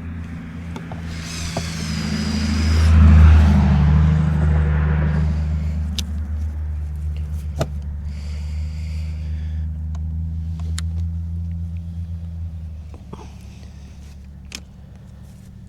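Engine of a passing motor vehicle, swelling to its loudest about three seconds in with a drop in pitch as it goes by, then slowly fading away. A few sharp clicks sound over it.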